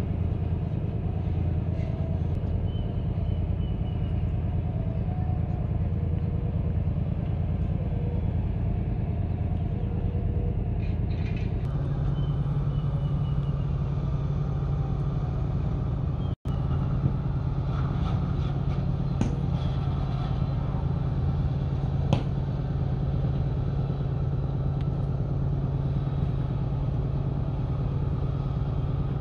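Steady low engine rumble of motor vehicles or machinery, with a steadier hum setting in a little before halfway. The sound cuts out for an instant about halfway, and a few faint clicks follow.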